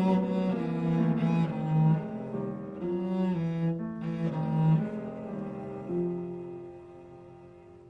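Cello playing a bowed melody, notes changing about every half second, then a long held note that fades away near the end.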